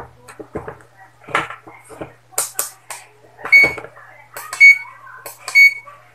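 A digital clamp meter beeps three times, short and high-pitched, about a second apart, as its buttons are pressed to set it up for testing a drill's trigger switch. A few sharp clicks come just before the beeps.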